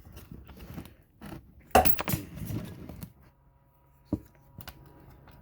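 Small hard tools and bits clicking and knocking as they are handled while searching for a star bit, with one sharp knock about two seconds in. A faint steady hum comes in near the middle.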